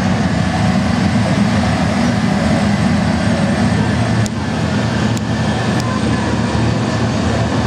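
Steady jet-engine roar of a recorded airliner takeoff sound, played over loudspeakers for a model Boeing 747's takeoff run, with a short dip about four seconds in.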